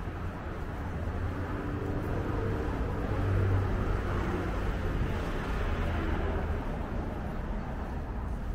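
A road vehicle driving past on a street: a low engine and tyre rumble that grows to its loudest about three and a half seconds in, then fades, over steady street noise.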